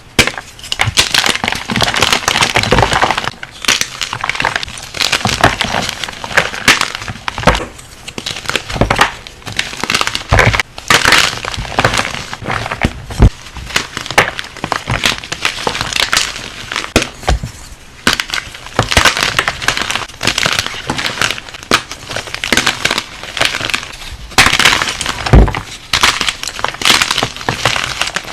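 Crunchy crushing of a brittle material close to the microphone: dense crackling and snapping in bursts a few seconds long, with short pauses between them.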